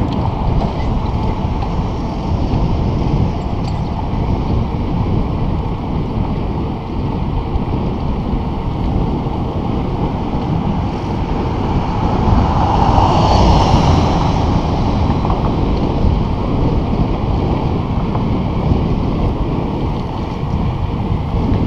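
Wind rushing over the microphone of a camera on a moving bicycle, a steady rumbling roar that swells louder for a couple of seconds about two-thirds of the way through.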